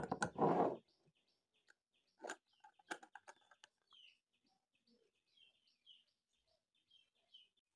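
A cosmetic cream jar being handled: a short scraping rustle as its lid is worked in the first second, then a couple of sharp clicks about two and three seconds in. Small birds chirp repeatedly in the background.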